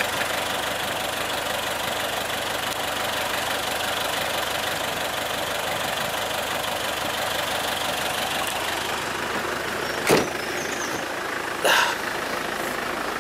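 Land Rover Discovery engine idling steadily while the vehicle stands in a river, with a steady rush underneath. Two short knocks sound near the end.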